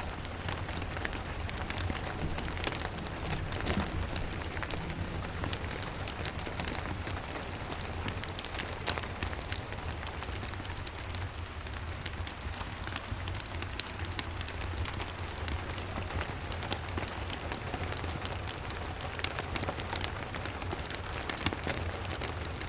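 Steady rain on a cabin, with dense small ticks of drops and crackles from a wood fire in a fireplace. A steady low rumble lies underneath.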